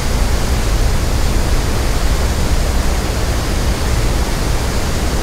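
Loud, steady rush of water from Niagara's Horseshoe Falls: a dense, even noise with a heavy low rumble underneath.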